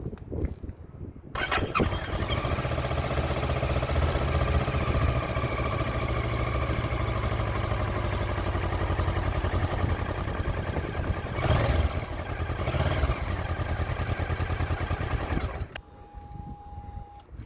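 Kawasaki ER-6n parallel-twin engine breathing through a custom handmade manifold and Akrapovic muffler, starting about a second in and idling loud. It is blipped twice near the end, then shut off.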